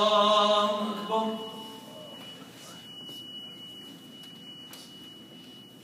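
Imam chanting the takbir "Allahu akbar" into a microphone to raise the congregation from prostration: one long held note, then a shorter one ending about two seconds in. A faint, steady high-pitched tone follows.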